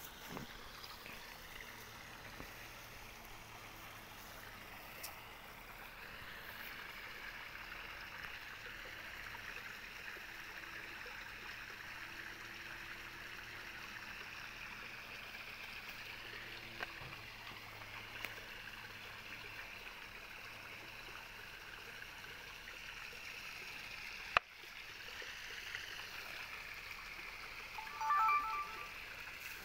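Steady hiss of running water, like a small stream. A single sharp click comes about 24 seconds in. Near the end, a camcorder gives a short electronic start-up chime of a few quick beeps as its flip-out screen is opened.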